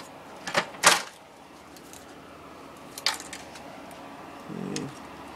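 Plastic parts of an IBM ProPrinter III cracking and snapping loose as the printer is pried apart by hand: two sharp snaps about a second in, and another about three seconds in.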